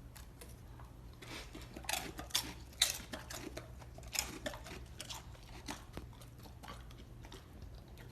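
Quiet, irregular crunching, like something being chewed, with a few louder crunches over a faint steady low hum.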